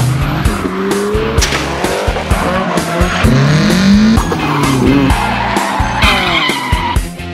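Music with a steady heavy beat mixed with car sounds: engines revving up in rising sweeps and tyres squealing, the squeal strongest near the end.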